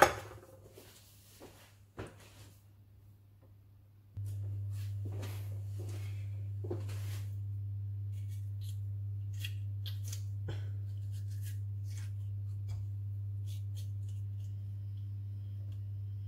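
A kitchen knife knocks once on a wooden chopping board as it cuts through a tomato, followed by faint clicks and scrapes of a spoon working a tomato half. About four seconds in a steady low hum starts and runs on underneath.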